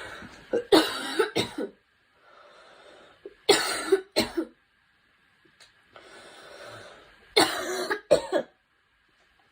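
A young woman coughing in three bouts of a few hard, sharp coughs each, with a drawn breath heard before each bout.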